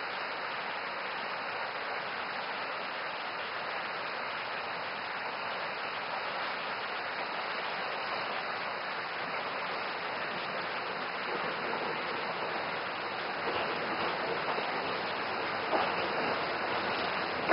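Steady rushing of a stream in the wooded ravine under the viaduct. Near the end it grows a little louder and a few sharp knocks come in as the 0-4-0 tank locomotive Dolgoch approaches.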